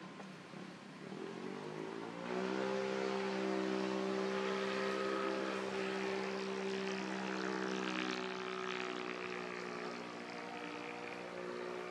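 An engine speeds up over the first couple of seconds, then runs steadily at an even pitch.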